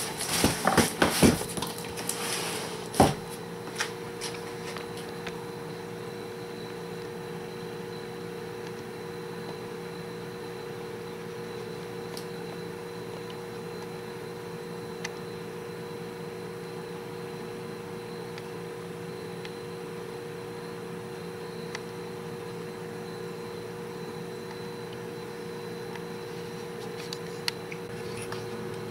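About three seconds of clatter and knocks, then a steady mechanical hum with a faint high whine and a few scattered light ticks.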